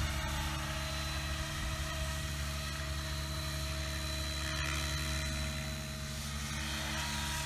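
Electric T-Rex 700E RC helicopter in flight, its rotor and motor running at a steady pitch. It is in idle-up mode with the head speed set a little higher.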